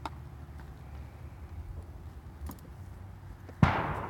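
A low steady rumble, then a single sudden loud thump near the end that fades out over about half a second.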